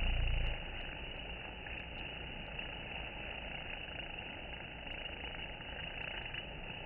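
Steady droning buzz of many honey bees around a wooden hive entrance, with a low rumble in the first half-second.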